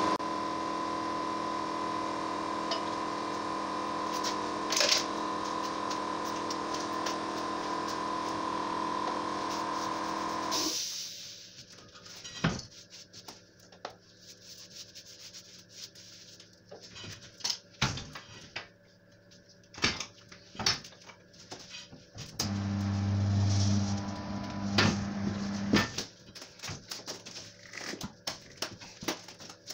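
A steady machine hum cuts off about eleven seconds in, followed by scattered knocks and clicks as a tyre is handled on a tyre changer. Later the tyre changer's turntable motor runs for about three seconds, and again at the very end, while the tyre bead is mounted onto the steel rim.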